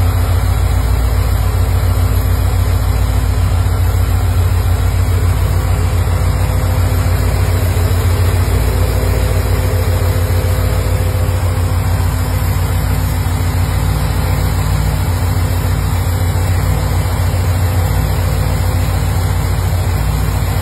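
1977 Chevrolet Corvette's small-block V8 idling steadily with the hood open, a deep, even running note with no revving.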